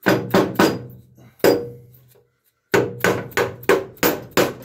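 Plastic mallet striking the cast spindle hub of a Case Ingersoll RM mower deck, driving it down into its hole in the deck: four quick blows, a pause of about a second, then six more at about three a second. The hub is tapped on opposite sides in turn so it goes in straight.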